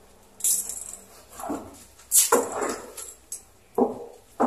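Wet long-haired cat giving several short cries while being bathed and lathered, with hissy wet rubbing of shampoo foam in its fur between them.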